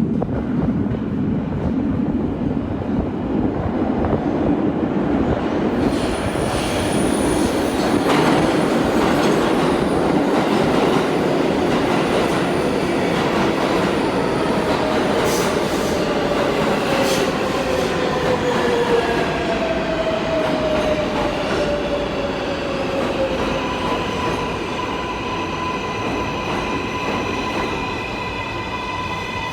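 Kawasaki R188 subway train running on the rails with loud wheel and track noise and some wheel squeal. Its motor whine falls in pitch as the train slows, then settles into steady tones near the end.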